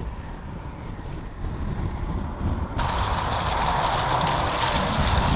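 Low wind rumble and road noise from a moving car with a window open. About three seconds in, it switches abruptly to a steady hiss of pouring, rushing water.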